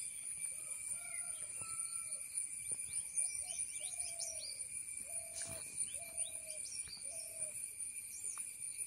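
Steady, high-pitched insect trilling, with a bird calling a series of about eight short, low hooting notes over it and faint higher bird chirps.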